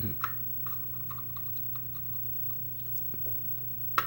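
Tweezers and tiny lock pins and springs clicking and scraping as they are worked out of an ABUS 80/45 padlock's pin chambers: a scatter of light ticks, with a sharper click near the end.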